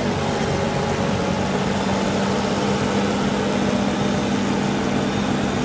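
Heavy diesel engine running steadily at a constant speed.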